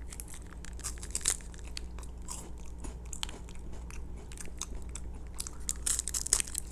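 Someone biting into and chewing a crunchy chocolate wafer bar, a steady run of sharp crisp crunches with a thicker cluster near the end.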